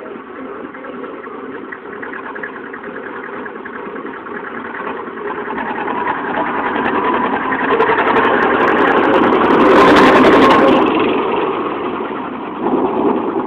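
IFA Rs 04/30 tractor's two-cylinder diesel engine running as the tractor drives up, passes close by about ten seconds in, and pulls away.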